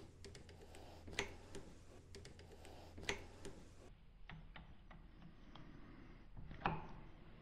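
Scattered light metal clicks and ticks as a scooter's brake lever is worked by hand at its pivot mount to remove it, with three sharper clicks about a second in, around three seconds and near the end, over a faint low hum.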